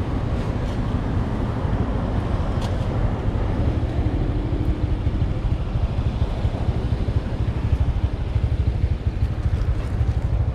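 Steady rumble of a vehicle on the move, with wind buffeting the microphone.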